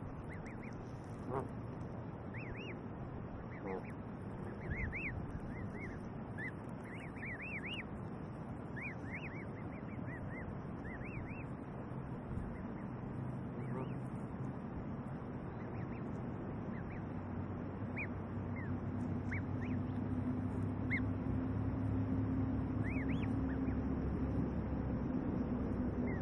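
Canada goose goslings peeping: many short, high cheeps, thick in the first half and fewer later. A steady low drone comes in about two-thirds of the way through.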